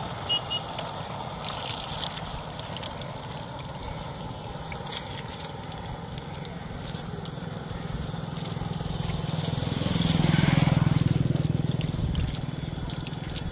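A motor vehicle passes on the road, swelling to its loudest about ten seconds in and then fading, over a steady low engine hum. Light sloshing of water as a fishing net is rinsed and shaken in a muddy puddle.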